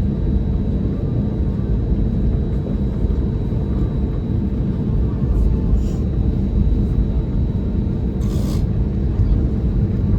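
Steady low rumble of cabin noise inside an Airbus A320neo on the ground after landing, with a faint steady whine. A brief hiss about eight seconds in.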